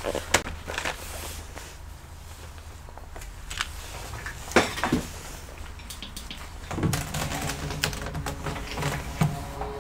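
Scattered sharp clicks and knocks of tools and parts being handled on an electronics repair bench, over a low steady hum. From about seven seconds in the clicks come thicker, and a low steady sound joins in beneath them.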